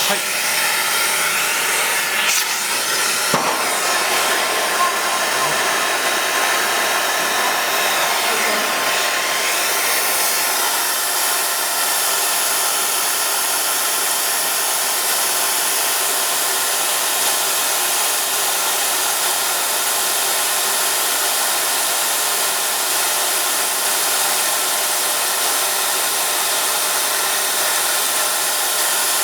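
Lathe running with a XEBEC abrasive brush rubbing against the spinning workpiece, a steady rushing, hissing grind. It turns brighter and more hissing about ten seconds in.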